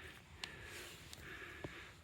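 Faint clicks and light taps, about three, of parts or tools being handled during a transmission teardown, over a quiet background hum.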